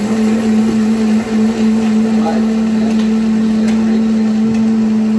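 Drink blender's motor running loud and even at a steady pitch, having just spun up.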